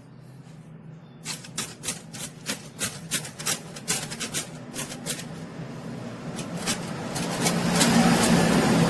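Old typewriter being worked on: a run of sharp clicks, about three a second, then a rubbing, scrubbing noise that builds and grows louder from about six seconds in.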